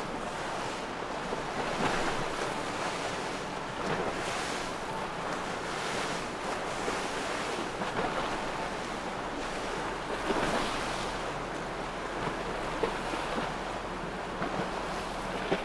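Rushing wind and breaking waves, with wind buffeting the microphone; the rush swells and eases every couple of seconds.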